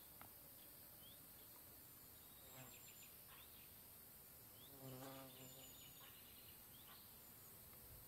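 Faint buzzing of a flying insect passing by for about a second, halfway through, over a near-silent background hiss with a few faint, short, high chirps.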